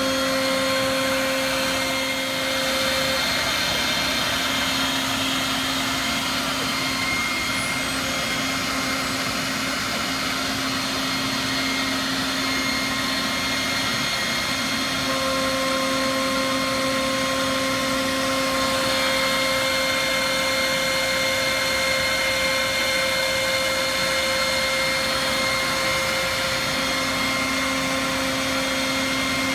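MultiCam A-Series CNC router's 3 hp Colombo spindle running at speed while its 3/16-inch router bit cuts 1/2-inch MDF: a steady whine over a rushing noise. Several times its tones drop out and come back as the cut goes on.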